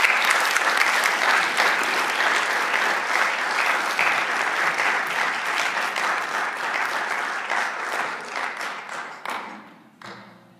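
Audience applauding, a dense steady clapping that fades and stops near the end, with a few last scattered claps.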